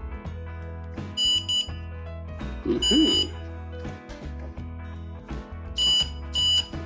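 Power Probe 3 circuit tester beeping in short high electronic tones as 12 volts is applied to its probe tip. There are two quick beeps about a second in, a longer one around three seconds, and two more near the end, over background music.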